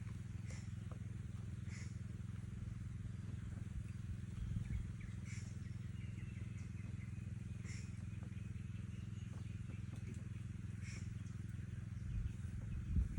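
Woodpecker giving short, sharp single calls every one to three seconds, over a steady low rumble. A couple of low bumps, one near the middle and one near the end.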